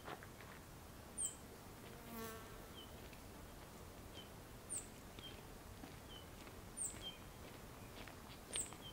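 Fledgling songbird begging: about four short, high-pitched falling chirps with fainter short notes between them. An insect buzzes past briefly about two seconds in.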